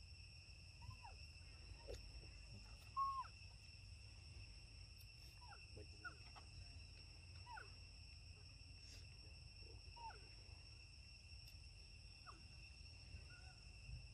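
Faint steady insect drone made of several even high tones, with short falling squeaky calls every second or two, the loudest about three seconds in, over a low rumble.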